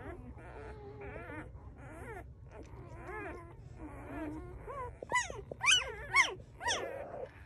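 Day-old newborn puppies squeaking and whimpering in a steady run of short, high-pitched calls, with a few louder, sharper cries from about five seconds in.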